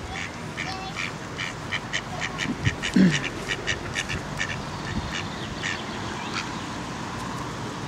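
Mallard ducks quacking in a quick run of short calls. One louder, low, falling sound comes about three seconds in.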